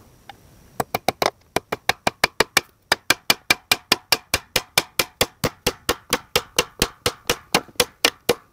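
Steel hammer driving a nail into a wooden board: a few strikes, a brief pause, then a steady run of quick blows at about five a second.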